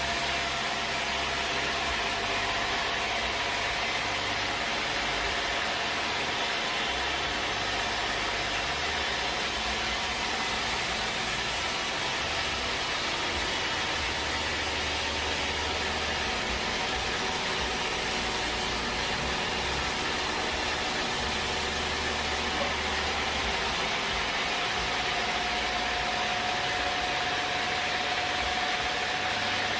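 Sawmill machinery running steadily: a constant mechanical drone and hiss, with a faint whine that rises a little in pitch near the end.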